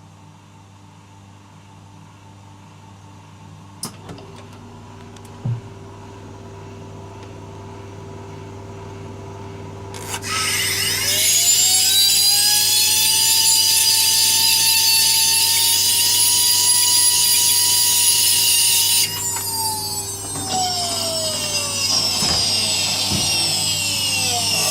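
Turbocharger spun up by a blast of compressed air: a loud hiss comes in about ten seconds in, with a whine that rises to a steady pitch and holds. When the hiss drops, the whine falls away as the rotor coasts down. Before that there is only a faint hum and two small knocks.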